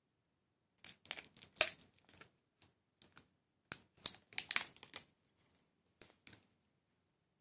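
Small model kit parts being handled at a work surface: irregular sharp clicks and crinkling rustles, thickest in the middle, with a couple of last clicks near the end.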